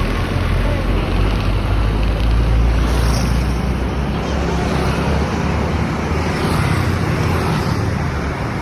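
Road traffic with the steady low rumble of a heavy vehicle's engine, such as a bus.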